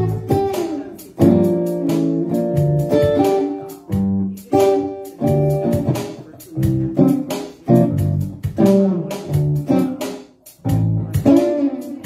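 Live, amplified acoustic-electric guitar playing picked notes and chords, with low bass notes underneath. An instrumental passage with no singing.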